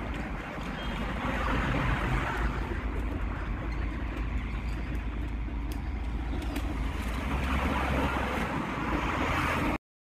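2013 Daikin RYP50CBV packaged air-conditioner outdoor unit running steadily: a rushing noise over a low hum. It cuts off suddenly near the end.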